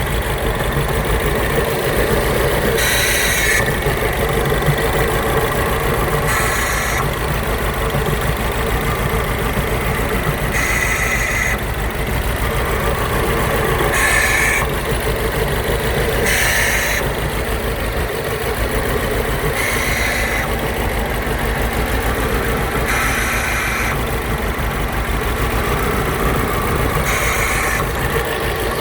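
2008 Mini Cooper Clubman S's turbocharged 1.6-litre four-cylinder idling with a misfire, with a short hissing "gasping" sound recurring about every three to four seconds, which the owner suspects may be behind the misfire.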